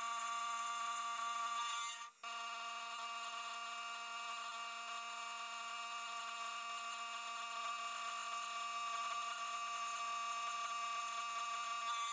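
SIEG SX2P mini mill's end mill cutting an aluminium block: a steady whine with several overtones, broken by a brief dip about two seconds in.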